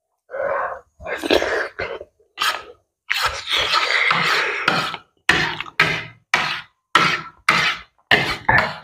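A man coughing and puffing out short, forceful breaths over and over while eating, from the burn of king chilli chutney: about a dozen separate bursts, with one longer rasping stretch about three seconds in.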